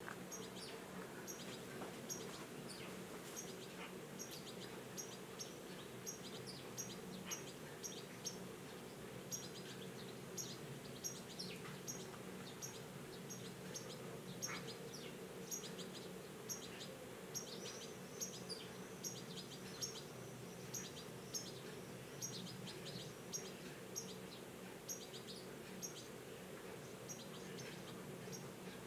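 Juvenile European goldfinch calling: short, high chirps repeated irregularly, about two a second, the calls of a fledgling waiting to be fed. A faint steady low hum runs underneath.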